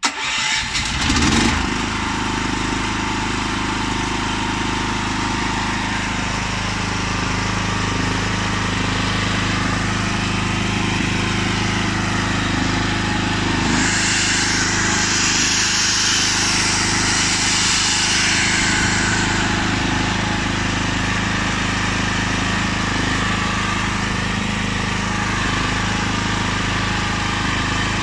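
Zipper ZI-STE8000 generator's single-cylinder four-stroke petrol engine starting on its remote electric start and settling at once into a steady run. From about a third of the way in, an electric drill powered from the generator runs for about six seconds over the engine's hum.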